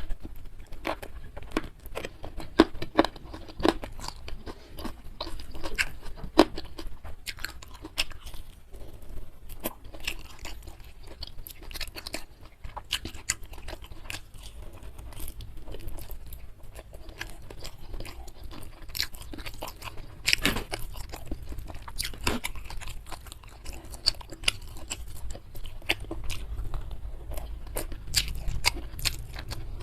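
A person chewing crunchy food close to the microphone: a steady run of crunches, bites and wet mouth clicks.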